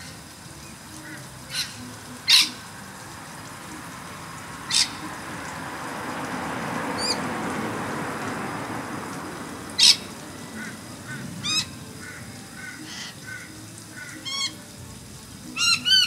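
Noisy miners calling: a few sharp single calls, then near the end a fast run of repeated chirps, about four a second, which is the noisy miner's alarm call. A low rushing noise swells and fades in the middle.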